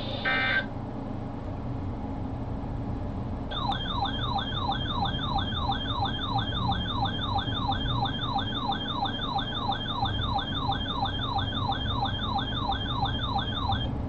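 Electronic siren-style alert sounding a fast rising-and-falling yelp, about two and a half sweeps a second, starting about three and a half seconds in. It announces a severe thunderstorm warning.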